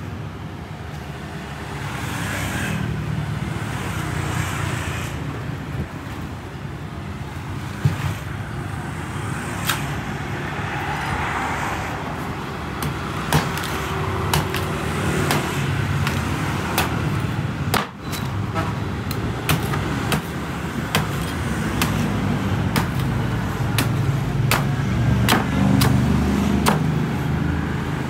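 Machete chopping and shaving the husk off a green coconut against a wooden board. It is a run of sharp, short chops that come more often in the second half, over a steady rumble of road traffic.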